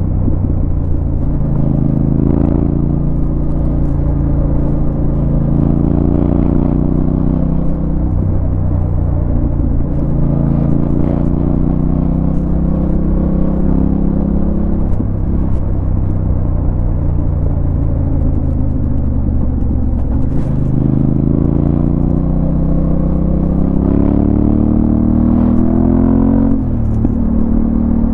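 Yamaha Ténéré 700's 689 cc parallel-twin engine running under way, its pitch rising and falling gently with the throttle. Late on it climbs steadily for several seconds, then drops sharply shortly before the end.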